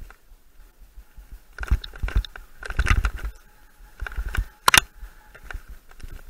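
Mountain bike clattering down a rough forest singletrack: tyres on dirt and roots with irregular knocks and rattles from the bike, in bunches, and a pair of sharp cracks a little under five seconds in.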